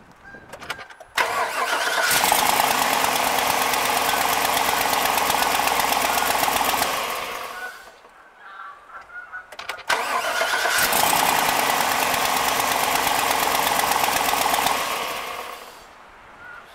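Chevy Silverado 2500 truck engine started twice on a newly installed battery. Each time it comes on suddenly, runs loud and steady for about six seconds, then dies away over about a second.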